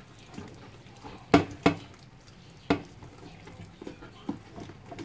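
Hands massaging a raw leg of lamb in a roasting tray: soft wet rubbing, broken by a few sharp slaps of palm on meat, two close together about a second and a half in and another near the three-second mark.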